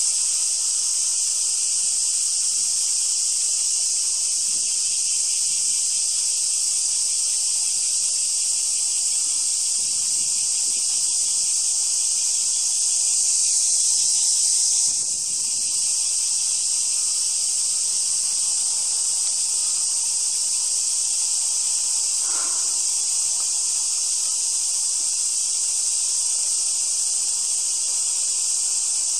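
Cicadas in a steady, high-pitched chorus that runs on without a break.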